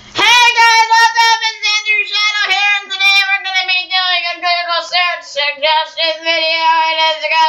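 A child singing in a high voice, one unbroken phrase whose pitch drifts slowly lower.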